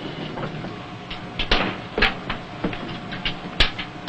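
Scattered metallic knocks and clanks, about half a dozen, over a steady low machinery hum inside a submarine compartment.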